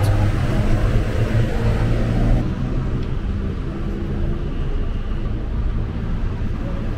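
A large vehicle's engine idling with a steady low rumble, likely a bus at the station. The sound shifts abruptly about two seconds in.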